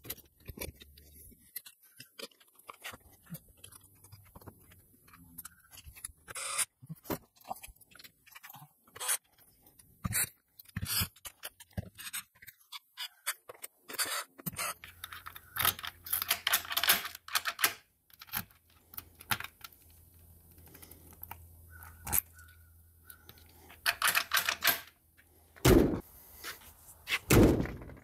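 Metal trailer door lock being fitted: scattered clicks, knocks and scrapes of the lock parts against the door. From about halfway through, a cordless drill drives the screws in short runs.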